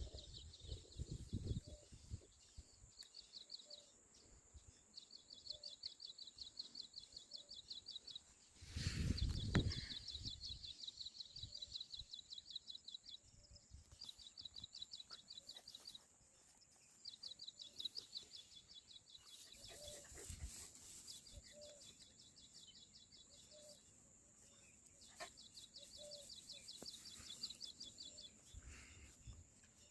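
Quiet outdoor ambience with repeated bursts of rapid, high chirping trills and a faint steady high whine. A loud rumbling gust hits the microphone about nine seconds in, and weaker ones come around twenty seconds.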